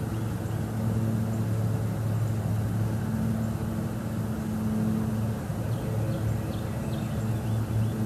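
A steady low mechanical hum, swelling and easing slightly, with a few faint short high chirps in the second half.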